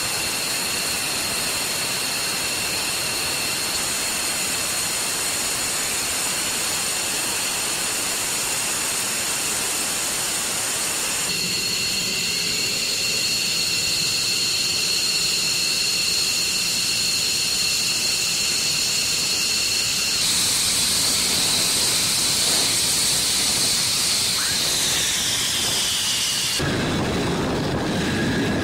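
Jet engines of taxiing F-22 Raptor and F-15E Strike Eagle fighters at low power: a steady high-pitched whine over a rushing hiss. The sound shifts abruptly a few times. Near the end one whine falls in pitch and a deeper rumble comes in.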